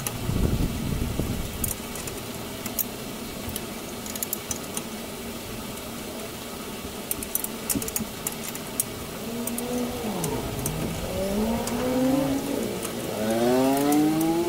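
Ratchet wrench clicking in short runs while turning a gearbox mount bolt, with metal tool clinks. From about ten seconds in, an engine revs up and down, its pitch rising and falling, and this grows to the loudest sound near the end.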